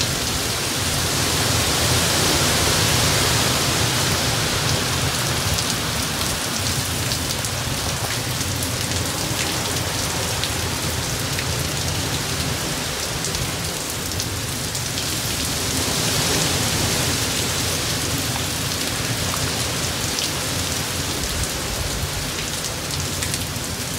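Hurricane rain pouring down and driven by wind, a dense steady hiss with drops pattering on surfaces. The wind swells in gusts about two seconds in and again about two-thirds of the way through.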